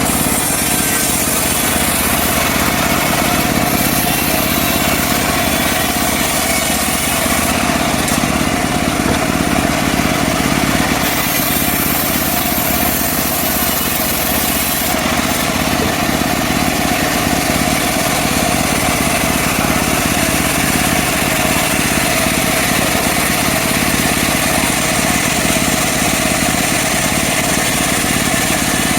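Engine-driven mobile band sawmill running steadily.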